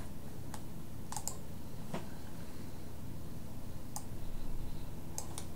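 A few sparse, irregular clicks of computer keys, about seven in all, over a steady low background hum.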